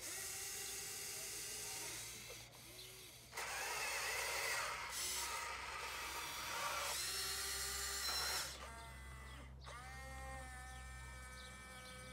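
Small electric motors of a Huina radio-controlled excavator whining as its arm and bucket are worked. The whines come in several runs that start and stop, with the pitch changing from one run to the next, and the loudest run falls in the middle.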